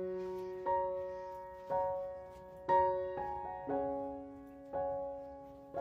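Background piano music: soft chords struck about once a second, each ringing and fading before the next.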